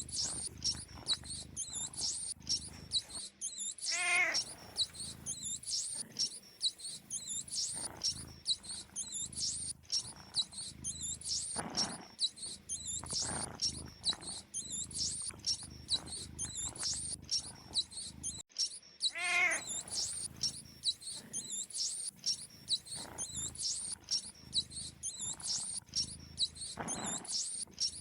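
Looped animal sound track for cats: rapid high chirps repeating steadily over a low rumble. A short pitched call comes about four seconds in and returns about fifteen seconds later as the loop repeats.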